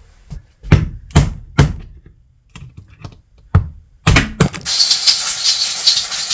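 Sharp metal-on-metal taps and clicks, about six over three seconds, from tools and parts being handled on a differential carrier. About four and a half seconds in, a steady hiss comes in and keeps going.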